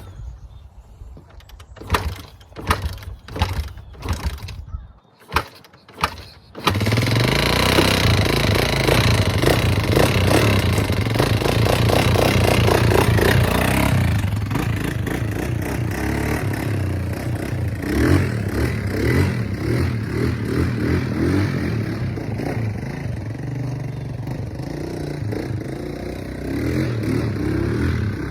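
1987 Kawasaki Mojave 250 ATV engine being turned over in several short tries, catching about six and a half seconds in, then running and being revved up and down.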